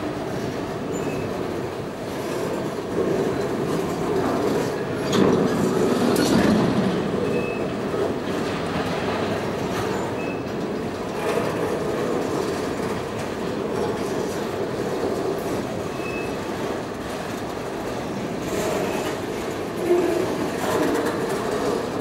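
Freight cars of a CN train, mostly auto racks, rolling past: a steady rumble of steel wheels on rail with clicks over the rail joints and a few brief high wheel squeals.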